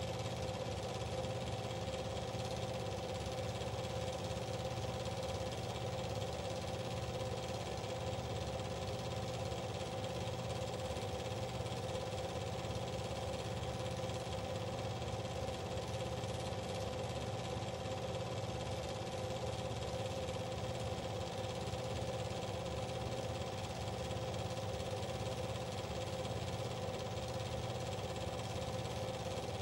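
Steady, unchanging machine running noise with a constant hum and several fixed tones, no rise or fall in pitch.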